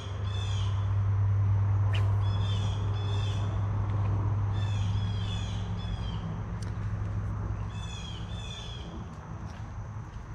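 Songbird singing repeated phrases of short downward-sliding whistled notes, over a steady low hum.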